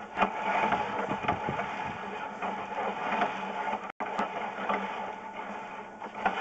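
Sewer inspection camera's push cable being pulled back out of the line: a steady clattering, scraping noise with many small clicks.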